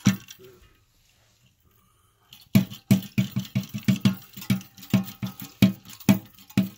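Rubber toilet-tank flapper worked by its chain, slapping rapidly against the flush valve seat in a fast run of dull knocks, about five a second, starting about two and a half seconds in.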